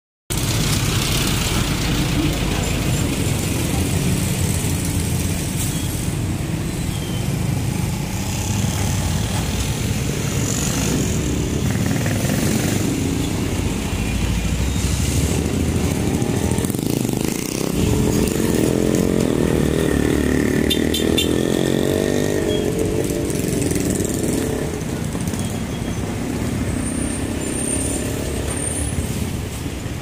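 Street traffic: engines of passing motorcycles, motorcycle tricycles and trucks running, a steady urban rumble that swells for several seconds around the middle.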